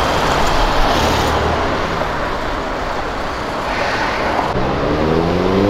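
Street traffic with a small car engine running at low speed as a roadster drives slowly past. About four and a half seconds in, a car engine revs up, its pitch rising steadily.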